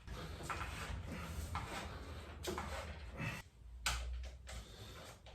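Scraping and a few sharp knocks as motorcycle front-end parts are handled and fitted by hand.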